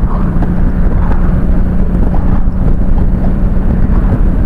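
Harley-Davidson V-twin engine running steadily at highway cruising speed, a constant hum under heavy wind rush on the microphone.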